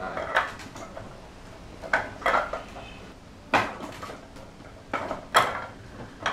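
Wing Chun wooden dummy being struck by hands and forearms: sharp wooden clacks against its trunk and arms, about six knocks at an uneven pace, some in quick pairs.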